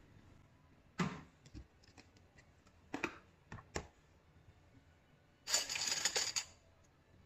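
Containers and utensils being handled while a drink is prepared: a few sharp clicks and knocks, then a hiss about a second long near the end.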